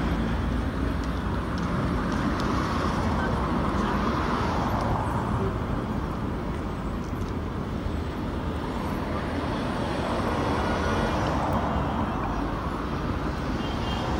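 Steady road traffic noise from cars passing along a busy street.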